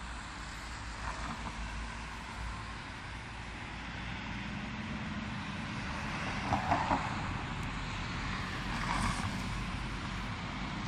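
A 52-metre rubber-tyred VAL metro train running along an elevated viaduct, mixed with road traffic below. The sound swells slowly, with a low steady hum from about halfway, and is loudest briefly a little past the middle.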